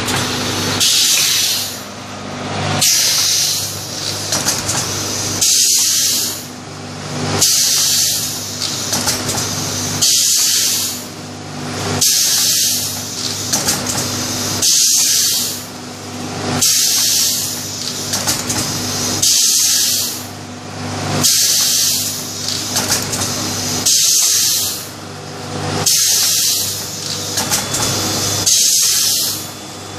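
Curled square baking cup forming machine running its cycle: a loud hiss of compressed air comes back about every two seconds, over a steady machine hum.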